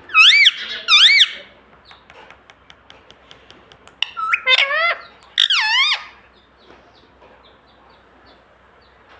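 Ringneck parrot squawking: two loud calls wavering up and down in pitch at the start, then a quick run of several more about four seconds in.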